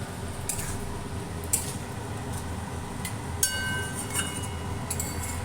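A metal spatula scraping and clinking against a kadai as spice paste and vegetables cook in it, with one brief ringing clink about three and a half seconds in. A steady low hum runs underneath.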